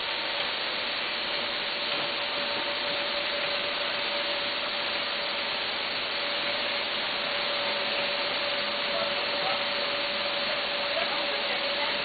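Vertical form-fill-seal snack packaging machine running: a steady hiss with a constant whine.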